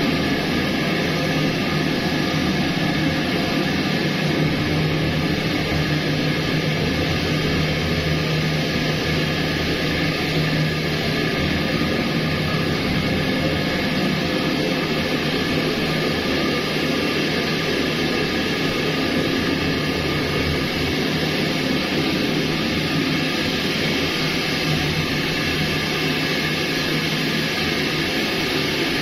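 Steady rushing machine noise with a low hum.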